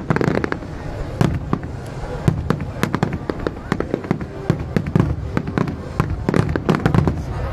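Fireworks display: aerial shells bursting in a rapid, irregular series of sharp bangs and crackling reports, several a second.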